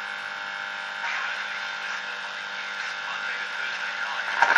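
Late-1940s valve radio coming to life as its valves warm up: a steady hum with faint noise from its speaker. The sound swells near the end as a station starts to come through.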